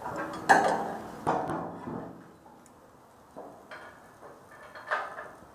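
Steel hand tool knocking against structural steel beams: a few sharp metallic clanks that ring briefly. The loudest comes about half a second in and another follows soon after, with lighter taps later.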